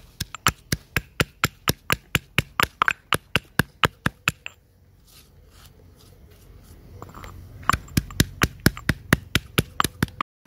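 Stone pestle pounding garlic, green peppercorns and fresh turmeric in a stone mortar: sharp, even knocks about four a second. They pause for about three seconds midway, then start again.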